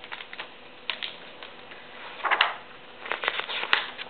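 A picture book being handled and its pages turned: scattered small clicks and two papery rustles, about two seconds in and again near the end.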